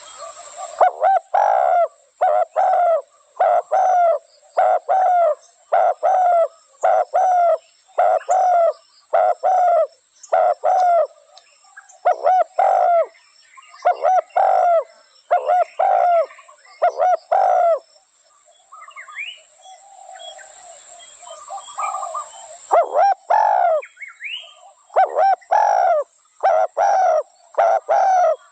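Spotted dove cooing: loud, evenly repeated phrases of arched coo notes, with a pause of a few seconds about two-thirds of the way through before the cooing resumes.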